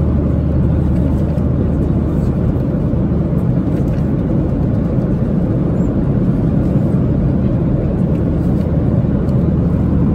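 Steady cabin noise of a Boeing 737-800 airliner in flight: an even, loud low drone of engines and airflow. Faint rustles of magazine pages being turned sound over it now and then.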